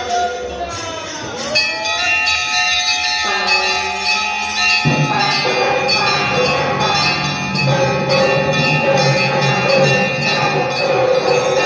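Temple bells rung continuously during a puja, a dense clangour of ringing metal tones and repeated strikes. About five seconds in, lower-pitched accompaniment joins the bells.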